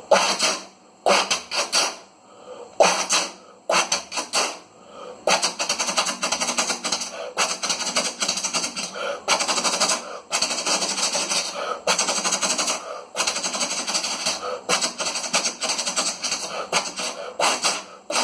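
Train sound effect: a fast, rattling clatter like a train running over rail joints, in short bursts for about five seconds, then running on without a break.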